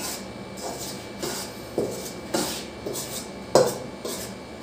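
Metal spatula scraping and stirring flour in a large aluminium pan, about eight strokes roughly every half second. This is flour being dry-toasted in the pan and kept moving so it browns without burning.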